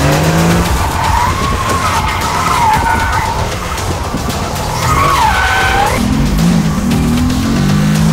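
Mercedes-AMG GT R's twin-turbo V8 under hard throttle while its tyres squeal in a drift, the squeal wavering up and down in pitch and falling away about six seconds in. After that the engine note carries on loud and steady.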